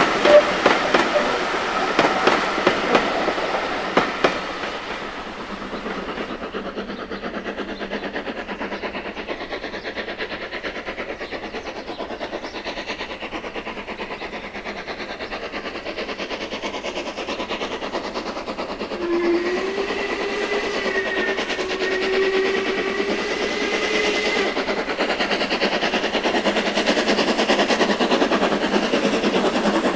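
Steam-hauled train running with a rapid, even beat, louder in the first few seconds. A whistle is held for about five seconds a little past the middle.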